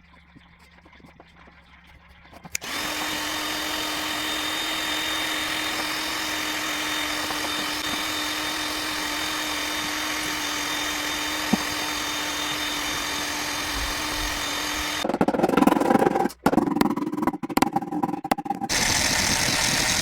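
A handheld power tool's motor starts about three seconds in and runs steadily with a constant hum for around twelve seconds. It then gives way to a louder, uneven stretch of noise, and a steady noise returns near the end.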